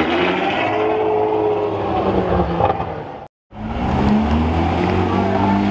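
Sports-car engines at low street speed. First a Ferrari GTC4Lusso drives past. Then, after a cut about three and a half seconds in, a Porsche 911's engine pulls away with a short rise in pitch and then runs steadily.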